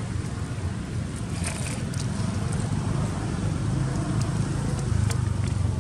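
Steady low rumble of wind buffeting the microphone, with a few faint clicks over it.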